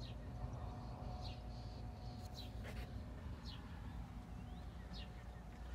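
Faint bird chirping, short high notes falling in pitch about once a second, over a low steady hum.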